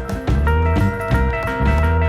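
Background music: an upbeat guitar tune with bass and drums and a steady beat.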